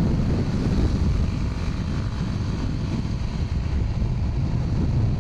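A motorcycle riding at road speed: a steady low rumble of engine and road with wind buffeting the helmet-mounted microphone.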